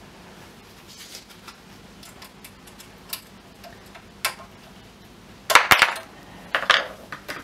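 Small metal clicks and scrapes of screwdrivers working a retaining clip onto the spring-loaded height adjuster screw of a reel mower, with a quick clatter of clicks about five and a half seconds in and another about a second later.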